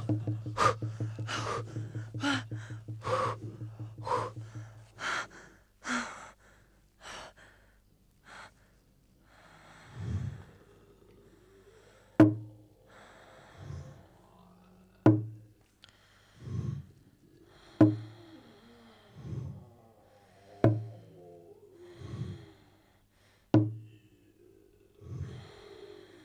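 A low steady drone under a run of sharp knocks that slow down and die away over the first several seconds. Then heavy, gasping breaths, each paired with a low thud and a click, come about every one and a half seconds in a slow, regular pulse.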